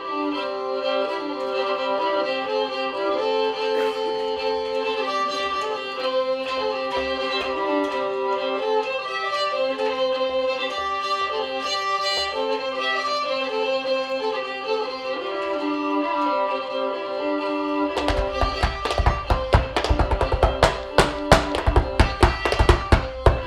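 A fiddle melody plays over a steady accompaniment. About three-quarters of the way through, quick sharp percussive taps join in: a dancer's feet stepping on a wooden box.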